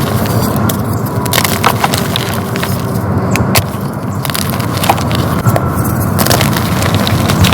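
Dyed gym chalk being crushed and crumbled: a dense, continuous run of crisp crunches with many sharp crackles.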